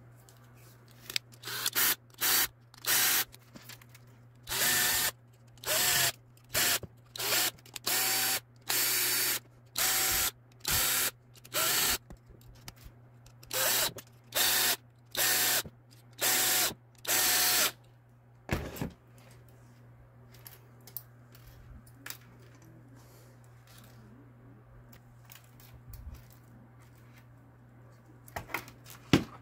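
Small electric motor whirring in short bursts, about twenty of them, each lasting about half a second and rising quickly in pitch as it starts, over the first eighteen seconds. A few faint clicks and knocks follow.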